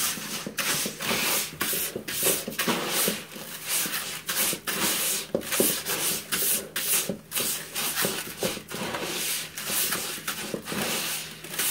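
Gloved hand stirring a bucket of wet instant rice mixed with ketchup, sugar and salt, the mixture swishing and the hand scraping the plastic bucket's sides in repeated strokes, about two or three a second. The rice is being worked until every grain is coated.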